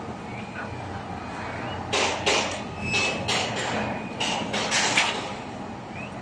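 A run of about nine sharp knocks, roughly three a second, from construction work in the yard, starting about two seconds in and stopping about three seconds later, over a steady din of site noise.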